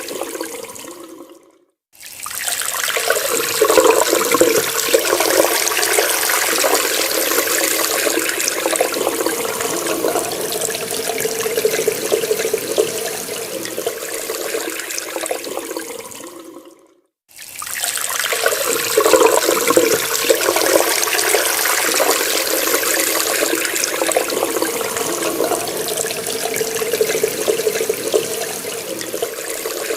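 Water running steadily from a tap and splashing. It fades out and stops twice, briefly, then starts again at full strength each time.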